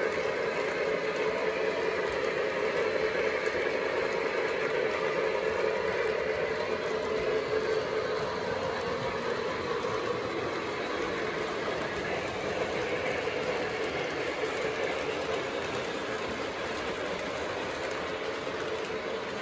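O gauge model trains running on three-rail track: the steady running noise of wheels and motor as a model of Southern steam locomotive 4501 and its passenger cars pass close by. It is a little louder in the first half and eases off toward the end.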